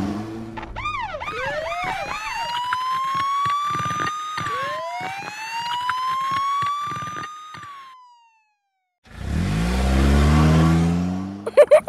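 Cartoon police-car siren: a quick yelping warble that turns into two long rising-and-falling wails, fading away as the car drives off. After a short silence, a car sound effect revs up and rushes in.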